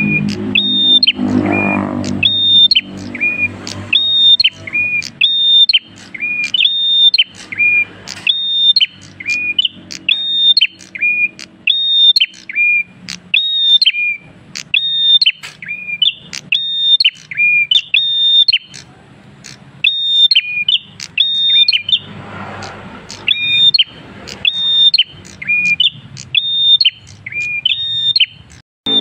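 Caged prenjak kristal songbird singing loudly and continuously. Its song is a fast, evenly repeated two-note phrase, a high steady whistle followed by a lower hooked note, about three phrases every two seconds, with a few short breaks.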